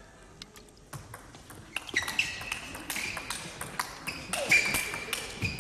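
Table tennis rally: the celluloid ball clicking sharply off the paddles and table at an irregular pace, starting after a quiet first second. A high, steady squeal sounds twice, about two seconds in and again near the end.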